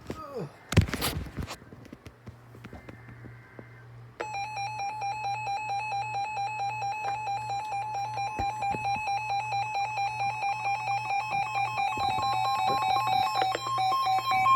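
Weather alert radio sounding its alarm for a severe thunderstorm warning: a loud pulsing electronic beep of two pitches, several beeps a second, starting about four seconds in, the higher tone growing stronger near the end. A sharp knock comes about a second in.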